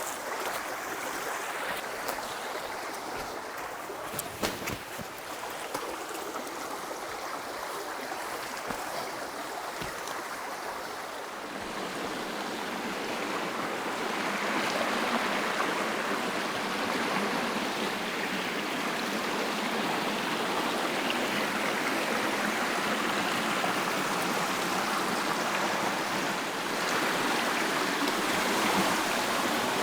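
Running water of a woodland stream, a steady rushing hiss that grows louder about twelve seconds in, with a few sharp clicks in the first five seconds.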